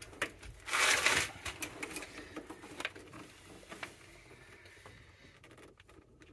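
Metal clicks and rattles of channel-lock pliers and a flexible metal-armoured cable being worked at the electrical connector of an electric water heater, trying to loosen it. A brief, louder scraping rush comes about a second in, followed by scattered sharp clicks.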